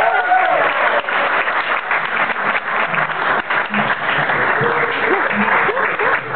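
Audience applauding steadily, with a few brief voices calling out over the clapping.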